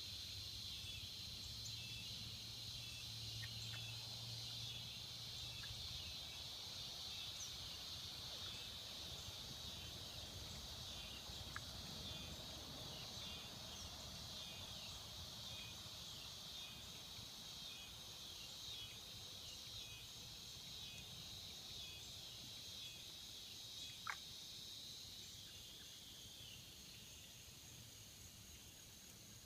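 Chorus of cicadas buzzing steadily at a high pitch, easing off slightly near the end. A brief sharp click sounds about 24 seconds in.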